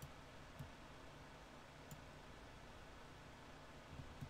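Near silence with a few faint computer-mouse clicks, spaced irregularly, as the satellite-map view is moved, over a light steady hiss of room tone.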